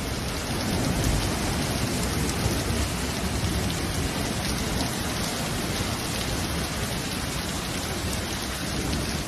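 Hailstorm: heavy rain and hailstones pelting a terrace and its furniture, a steady dense hiss with many small impacts.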